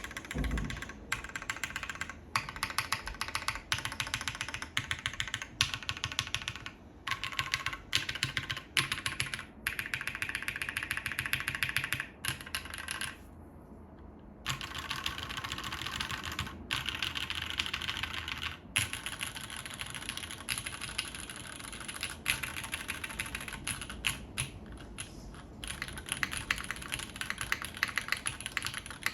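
Typing on a mechanical keyboard with linear Cherry MX Black switches on a full aluminium plate and GMK keycaps: runs of fast key clicks and bottom-outs broken by brief pauses, with a longer pause about halfway through.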